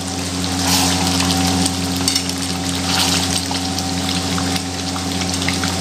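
Chicken curry sizzling and bubbling in a large metal kadhai as a metal spatula stirs it, with scattered clicks and scrapes against the pan. A steady low hum runs underneath.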